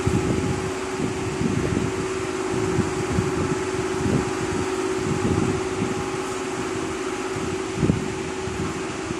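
Lathe running with a steady motor hum, overlaid by irregular short scraping knocks, one louder a little before the end.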